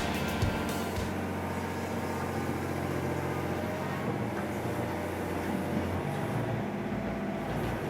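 Diesel engine of an excavator running steadily: a low, even drone.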